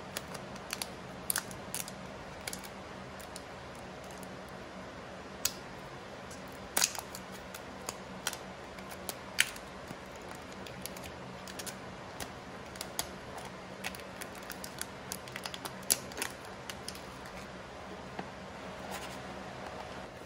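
Irregular crackles and clicks of clear plastic protective film being peeled and handled on a new Samsung Galaxy Z Flip phone, with small taps of the handset and its cardboard box, over a faint steady hum.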